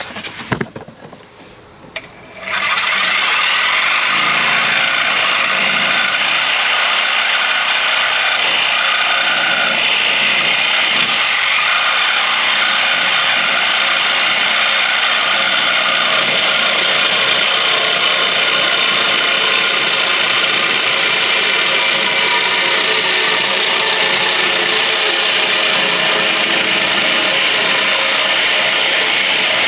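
Reciprocating saw cutting through the metal exhaust pipe under the truck, starting about two and a half seconds in and running steadily, loud and grinding, to the end.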